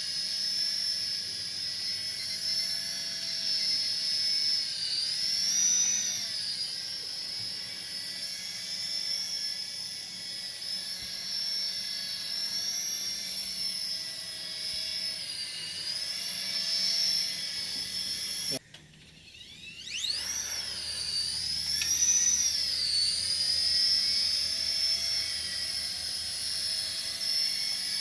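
DEERC Apache toy RC helicopter's small electric motors and rotors in flight: a steady high-pitched whine that swells up and down in pitch as the throttle changes. About two-thirds of the way through the whine cuts out briefly, then spins back up with a rising whine.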